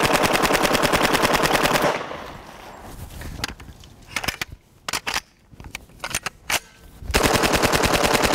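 H&K UMP45 submachine gun firing .45 ACP on full auto in two long bursts: the first stops about two seconds in, the second starts about seven seconds in. A few scattered sharp clicks fall in the pause between.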